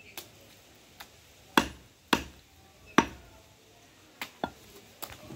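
Heavy butcher's cleaver chopping mutton on a wooden stump chopping block: a run of sharp, unevenly spaced chops, the hardest three in the middle, then lighter quick ones near the end.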